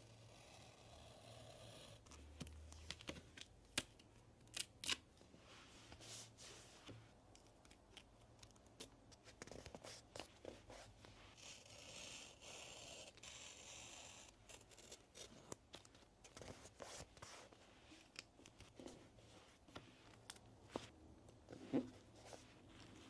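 Faint paper-crafting sounds for a journal collage: paper being cut and torn, with scattered small clicks and taps and two longer stretches of rustling.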